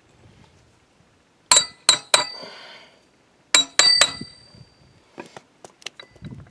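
Sharp metal-on-metal clanks with a bell-like ring, in two groups of three about two seconds apart, then a few lighter clicks: steel parts of a tractor's PTO input shaft assembly knocking together as they are worked out of the housing.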